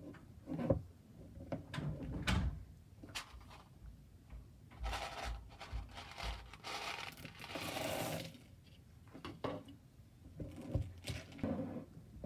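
A wooden stick stirs thick slime in a plastic bowl, scraping against the bowl and squelching. About five seconds in comes a few seconds of dense rattling as small beads are poured from a plastic bowl into the slime.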